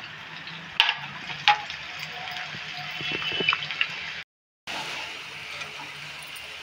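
Lauki kofta balls deep-frying in hot oil: a steady sizzle and crackle of bubbling oil. Two sharp clicks come about a second in, and the sound drops out briefly a little past the middle.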